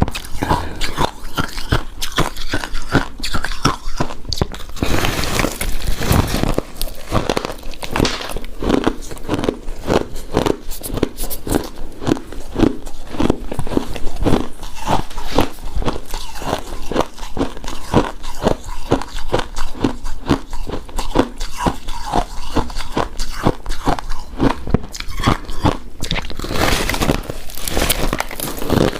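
Close-miked chewing of a soft, chewy coconut-coated rice cake, a steady run of mouth sounds about two a second.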